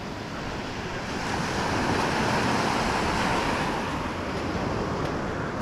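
Ocean surf washing up the beach, swelling about two seconds in and easing off, with some wind on the microphone.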